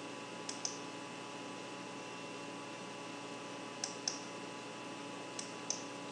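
Computer mouse clicking three times, each click a quick press-and-release pair, over a steady faint electrical hum.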